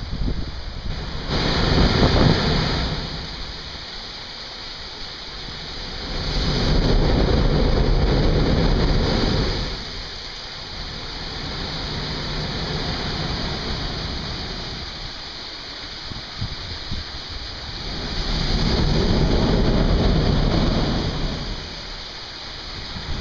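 A wave-driven coastal blowhole gushing: seawater pushed in by the waves forces river water up through a hole in the rock as a spout of spray. Rushing water swells into three loud surges, about two, seven and nineteen seconds in, with quieter gushing between.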